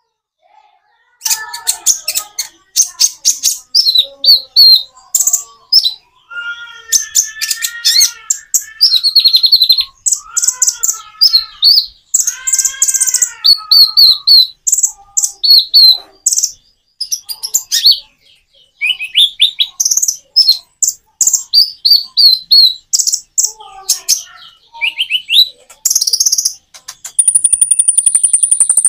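Konin (kolibri ninja, a small sunbird) singing a long, varied song. It starts about a second in with rapid high chirps and trills broken by short pauses, mixes in lower wavering notes, and holds a long thin high whistle near the end.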